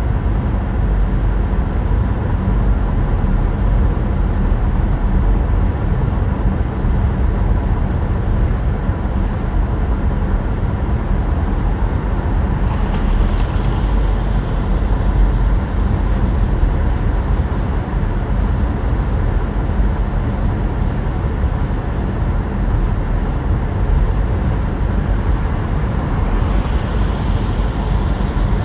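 Battery electric car's cabin at autobahn speed: a steady low rumble of tyre and wind noise with no engine sound. A brief swell of higher hiss comes about halfway through and again near the end.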